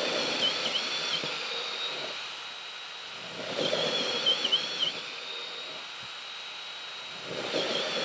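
Flex cordless hammer drill in drill mode, trigger held the whole time, boring 3/4-inch holes through a wooden beam one after another. A steady high motor whine runs between holes, with three louder stretches as the bit cuts through the wood (at the start, about halfway, and near the end), the whine dipping and wavering under the load.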